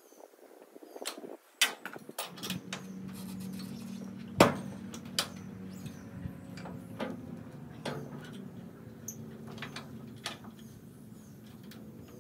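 A Wood-Mizer sawmill's hydraulic pump starts about two seconds in and runs with a steady hum while its control levers are worked. Metal clicks and clanks from the mill come throughout, the loudest about four and a half seconds in.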